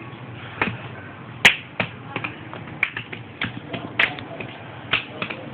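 Irregular sharp taps and slaps, about a dozen of them, the loudest about a second and a half in: a small child's bare hands and feet striking a concrete floor as he flops about.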